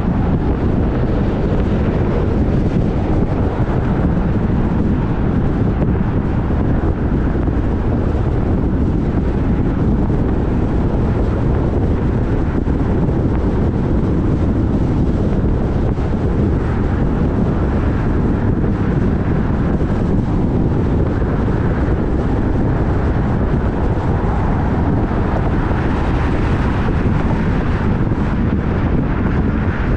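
Wind buffeting the microphone over a steady low rumble, with no distinct events.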